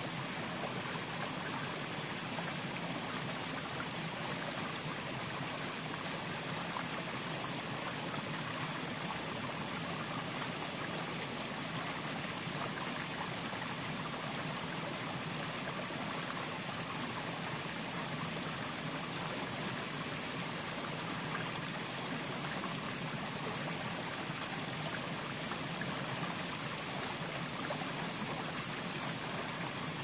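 Fountain water falling and splashing steadily into a basin, an even, unbroken wash of water noise.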